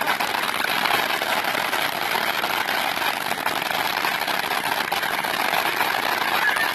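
Firework cake's crackling effects: a dense, steady crackle without single big bangs.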